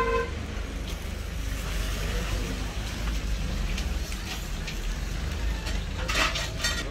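A steady low rumble in the background, with a short burst of crackling about six seconds in.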